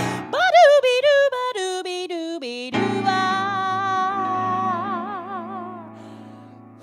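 A woman singing the closing phrase of a cabaret song: a line stepping down in pitch, then a long final note with widening vibrato over a held accompaniment chord, fading away near the end.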